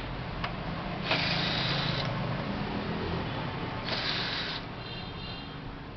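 Mechanical handling noise: a sharp click about half a second in, then two short rasping scrapes, about a second in and about four seconds in, over steady background noise.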